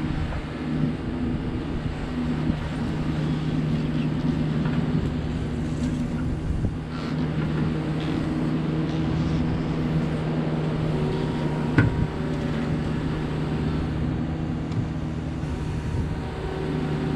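Diesel engine of compact earthmoving equipment running steadily under load, with a single sharp knock about twelve seconds in.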